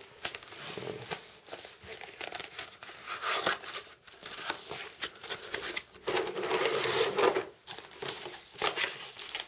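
Cardboard and plastic packaging being handled and pulled about: irregular crinkling, rustling and scraping, with a longer rustle about six seconds in.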